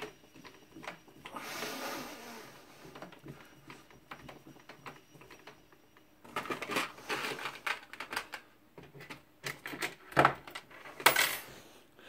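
Hand tools and small metal parts clinking and rattling as they are handled on a workbench beside a small lathe, with a short burst of rattles in the middle and a few sharp metallic knocks near the end.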